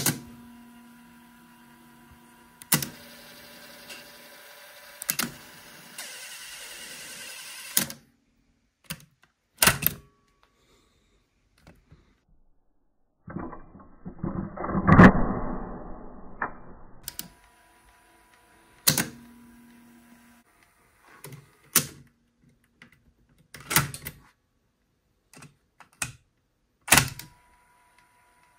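The transport mechanism of a 1983 Pioneer KP-005 car cassette deck being worked: sharp clicks and clunks, about fifteen of them, spread irregularly through the stretch. Between some clicks a steady electrical hum starts and stops, and a longer whirring noise runs for about four seconds in the middle.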